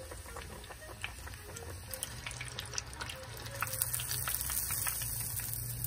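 Panko-breaded horse mackerel deep-frying in a small pot of hot oil: steady sizzling with many small crackles, the hiss growing louder in the second half.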